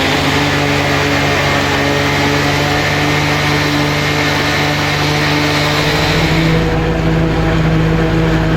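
Heavy diesel engine of a farm vehicle running steadily under load. About six seconds in, the sound changes: the high hiss drops away and a deeper low drone takes over.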